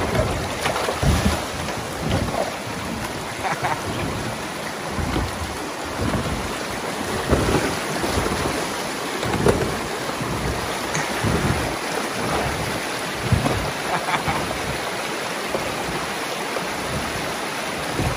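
Water splashing and rushing around a kayak on a flowing river, with irregular splashes every second or two over a steady rush, and wind on the microphone.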